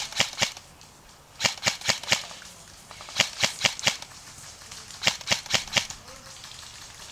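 Airsoft rifle firing in short groups of about four quick snapping shots, four groups in all, with pauses of about a second between them.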